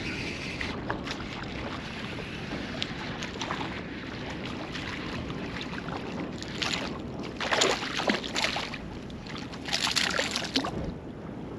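Steady wind on the microphone and lapping water, with several short bursts of splashing close by, the loudest about two-thirds of the way through and again near the end.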